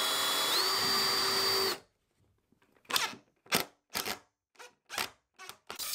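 Cordless drill pre-drilling a pilot hole through a fiberglass shower base flange into a wooden stud. Its motor whine steps up in pitch about half a second in and stops just before two seconds. Then comes a run of short, sharp clicks and knocks.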